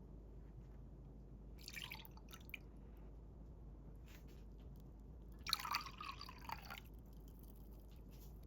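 Liquid dripping and splashing in two short spells, about two seconds in and again, louder, about five and a half seconds in, over a low steady hum.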